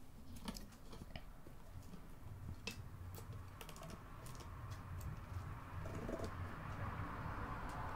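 Faint scattered clicks and taps of fingers and small Torx screws on the video card's thin metal X-bracket as it is worked loose, over a low steady hum.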